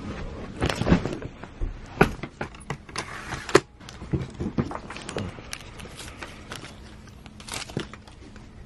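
Luggage being handled during packing: fabric bags rustling, with irregular sharp clicks and knocks from zipper pulls and hardware, thinning out toward the end.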